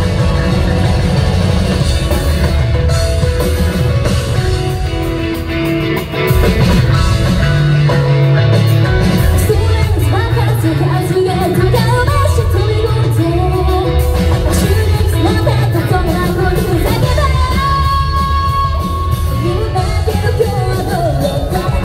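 A live rock band plays with a female lead vocal over guitar, bass, keyboards and drums. The sound dips briefly about six seconds in, then the full band comes back in louder.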